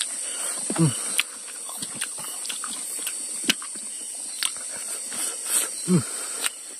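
Steady high-pitched chorus of night insects such as crickets, with scattered sharp clicks. About a second in and again near the end come two short low calls that fall in pitch.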